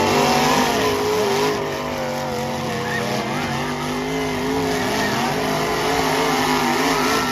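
Several demolition derby cars' engines revving hard at once, their pitches rising and falling against each other over a loud rushing noise.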